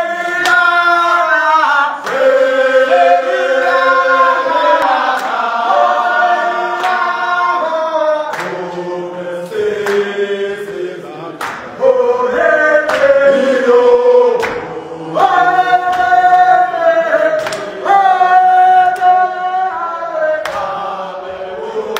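A group of men singing together as a chorus, long held notes moving up and down the melody, with a sharp hit every couple of seconds.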